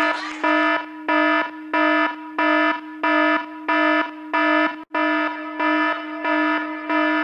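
Electronic alarm-like tone: a steady pitched drone with a bright beeping pulse laid over it, repeating evenly a little under twice a second. There is a momentary dropout near the middle.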